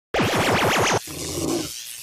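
Record-scratch sound effect: rapid back-and-forth sweeps for about a second, then dropping to a quieter tail.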